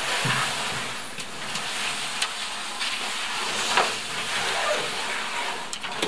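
Aluminum canoe hull dragged over grass and brush: a continuous scraping hiss, with a couple of low thumps near the start and a few sharp clicks as the hull knocks along.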